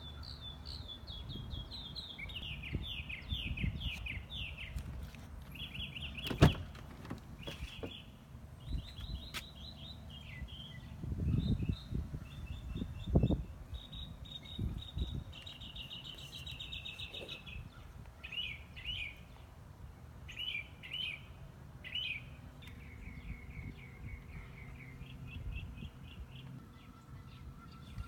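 Small birds chirping and trilling in repeated short runs throughout, over a low rumble. A single sharp click about six seconds in and a few dull thumps around eleven to thirteen seconds come from the van's door being opened and handled.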